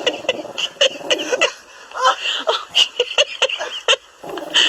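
A woman laughing in short, breathy bursts, about four or five a second.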